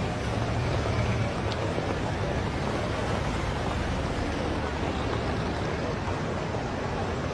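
Steady rushing city street noise of traffic, with a faint murmur of voices.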